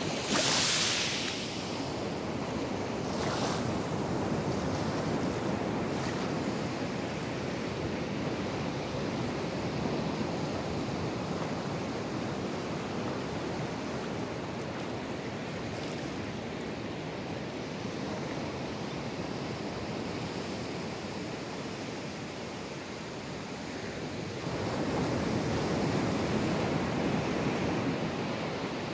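Ocean surf: small waves breaking and washing up the beach as a steady hiss. There is a brief louder hissing wash right at the start, and the surf swells louder again about 25 seconds in.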